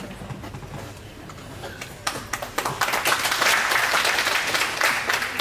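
Audience applauding: a few scattered claps at first, building into full, dense applause about two seconds in.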